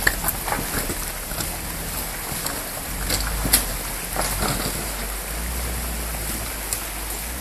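Land Rover Defender 4x4's engine running as it drives slowly away over riverbed stones, with a stream rushing alongside and a few sharp clicks of stones under the tyres.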